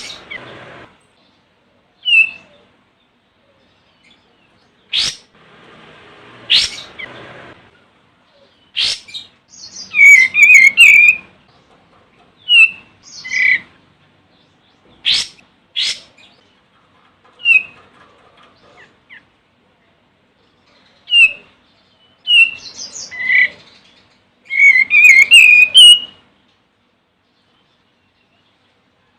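Olive-winged bulbul calling. Short, sharp upward-sweeping notes alternate with bursts of quick, bubbly chattering phrases, with pauses of a second or more between them.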